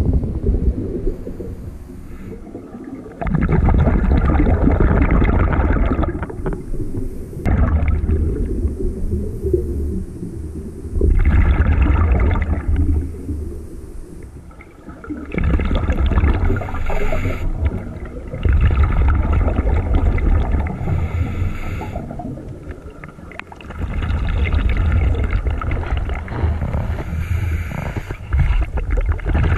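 Scuba diver breathing underwater through a regulator: exhaled air bubbling out in repeated bursts of two to three seconds, about six breaths, with quieter stretches between them.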